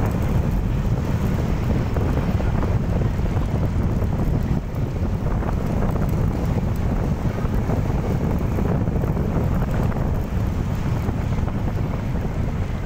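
Steady wind buffeting the microphone on a moving motorcycle, a dense low rumble with the bike's engine and road noise underneath.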